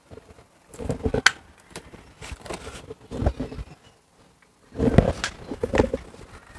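Handling noise inside a washing machine's cabinet as wires and hoses are moved around: irregular rustles, knocks and scrapes with a sharp click about a second in, loudest around five seconds in.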